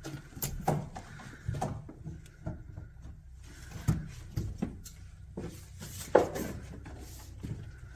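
Irregular light knocks and clicks, about a dozen, the sharpest about six seconds in, over a low steady hum.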